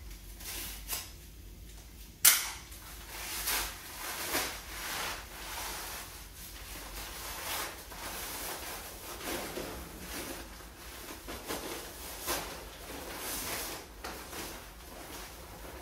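Handling noises: a sharp knock about two seconds in, then a string of short rustles and scuffs.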